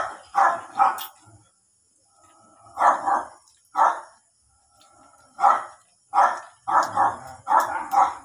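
A dog barking repeatedly: about a dozen short barks in quick clusters of two or three, with pauses between them.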